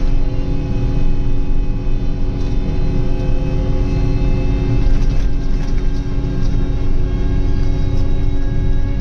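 Heavy machinery engine running steadily, a low rumble with a constant hum on top.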